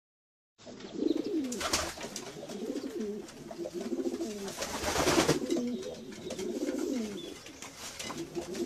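Domestic pigeons cooing: repeated low coos that rise and fall, several in a row and overlapping, starting after a brief silence. A short rushing noise comes about five seconds in.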